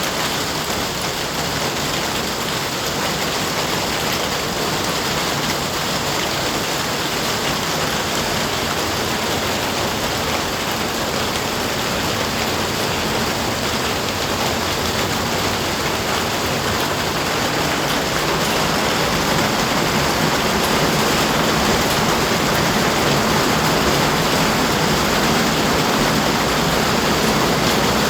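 Steady rain, an even hiss that grows a little louder about two-thirds of the way through.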